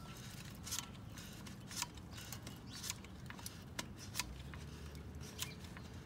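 Irwin Quick-Grip one-handed bar clamp being pumped, its trigger handle clicking about twice a second at irregular intervals as it squeezes the brake caliper to push the piston back.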